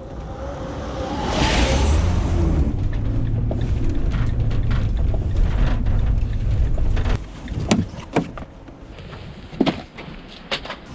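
Amazon delivery van running with a low rumble, with a brief hiss about a second and a half in. After about seven seconds the rumble drops away and a few sharp knocks follow.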